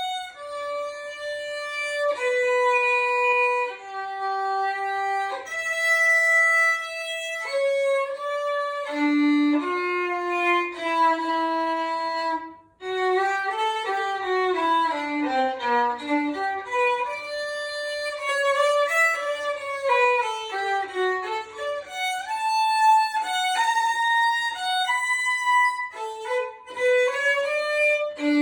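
Solo violin playing a melody of sustained bowed notes, with a brief break about twelve seconds in followed by a quicker passage of notes sliding down and back up.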